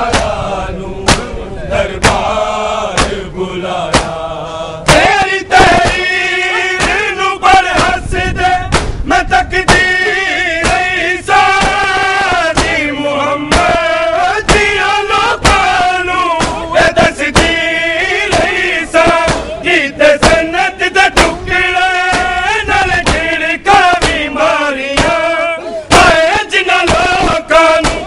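Male voices singing a noha, a Shia mourning lament, in unison, with many sharp slaps of hands on bare chests (matam) from the crowd of mourners.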